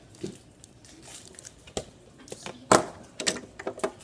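Small plastic toy pieces clicking and knocking as they are handled, a few sharp clicks with the loudest a little under three seconds in.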